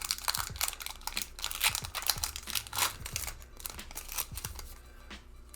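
Foil booster-pack wrapper being torn and crinkled by hand: a dense run of crackles that thins out over the last couple of seconds.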